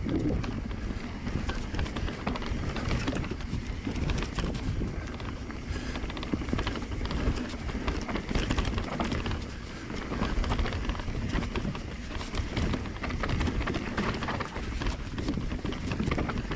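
Mountain bike ridden along a rough, rooty forest trail: a continuous tyre and ground rumble with many quick rattles and knocks from the bike over the bumps.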